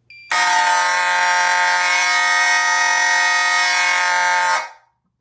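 Mechanical fire alarm horns sounding one steady, loud blast of about four seconds, then cutting off. This is the system's response to a smoke detector tripped with the panel in walk test.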